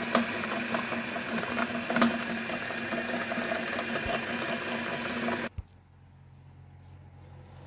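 Meat grinder motor running with a steady hum and scattered clicks as it grinds bouncy balls into crumbs. It cuts off suddenly about five and a half seconds in, leaving a faint low hum.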